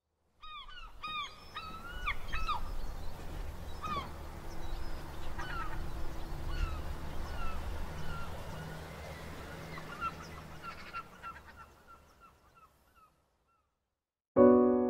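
A flock of gulls calling: a quick run of short arching calls at first, then scattered calls, over a low rumble. The calls fade away, and a piano chord comes in near the end.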